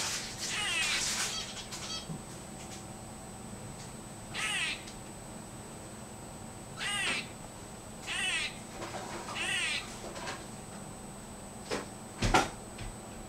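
A squirrel giving a series of about five short, wavering calls, each around half a second long and a second or two apart. A sharp knock comes near the end.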